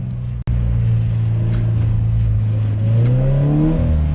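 A car engine running, then revving up about three seconds in and easing off again near the end, after a sudden cut half a second in.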